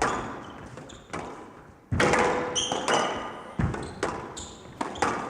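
Squash rally: the ball cracking off rackets and walls about once a second, with short, sharp shoe squeaks on the court floor, all echoing in a large hall.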